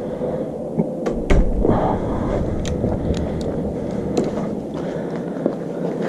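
A door shutting with a low thump about a second in, followed by scattered light clicks and knocks as tongue-and-groove (channel-lock) pliers are handled and adjusted, over steady background noise.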